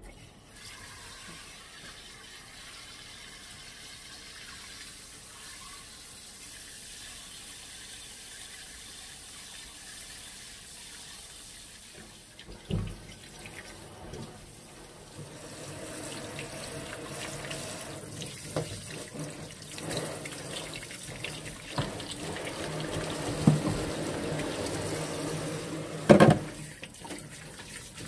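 Water running from a kitchen tap into a sink, growing fuller and louder about halfway through, with a few sharp knocks of things being handled in the sink, the loudest near the end.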